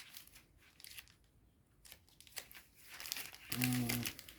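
Foil booster packs crinkling and rustling as they are handled and shuffled, with a short low hum near the end.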